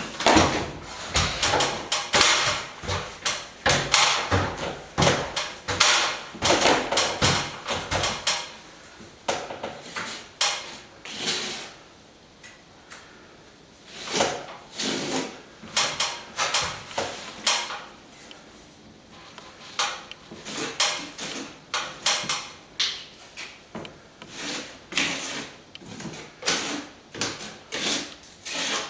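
Hand plastering tool scraping and working against a plaster wall in quick repeated strokes, with a brief lull about halfway through.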